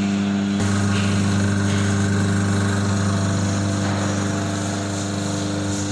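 Electric motor of a countertop sugarcane juice machine running with a steady hum.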